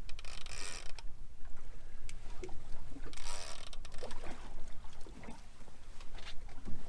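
Boat noise on open water: a steady low wind-and-water rumble with short hissing rushes, one lasting about a second at the start and another about three seconds in.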